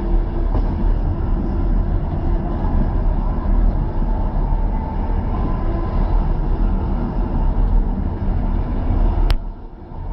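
Steady low rumble of a moving passenger train heard from inside the carriage, with drawn-out droning tones over it: the trumpet-like sound the passenger likens to demons playing trumpets. There is no clack of rail joints, and the rails are long welded lengths. About nine seconds in there is a sharp click and the noise drops briefly.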